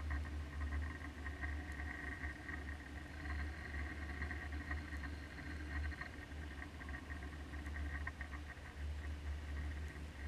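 Underwater sound picked up by a submerged camera: a steady deep hum under a fast, crackling buzz.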